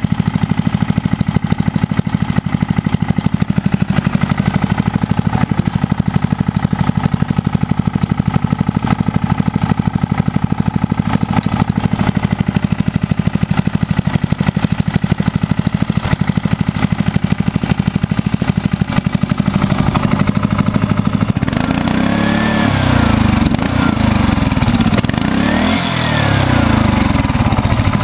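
Honda GC160 single-cylinder pressure-washer engine running with its governor linkage disconnected, so it sits at a low, near-idle speed. In the last six seconds or so its speed rises and falls several times.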